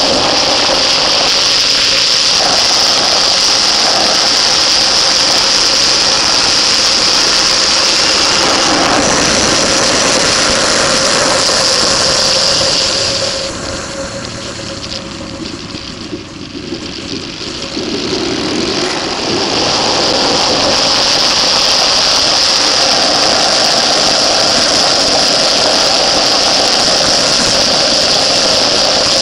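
Onboard sound of a motorcycle being ridden hard on a race track: the engine's drone mixed with heavy wind rush over the bike-mounted microphone. About halfway through, the noise drops for several seconds, then builds back to full.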